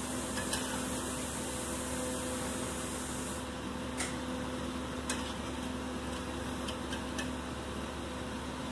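Steady mechanical hum, with a high hiss that cuts off suddenly about three and a half seconds in. A few light clinks of a steel slotted spoon against a steel plate and a hammered aluminium pot come through as chicken pieces are lifted out of broth.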